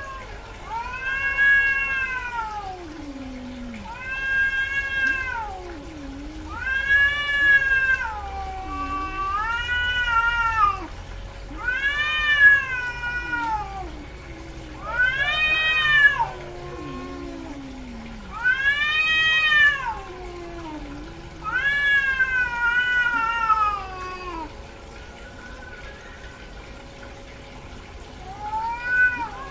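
Female cat in heat caterwauling: about nine long, drawn-out meows, each rising then falling in pitch, with a pause of a few seconds before a last call near the end.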